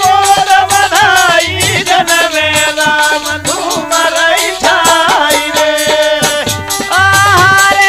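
Holi folk song, instrumental passage between sung lines: a wavering melody over dholak drum beats and steady rattling, jingling percussion.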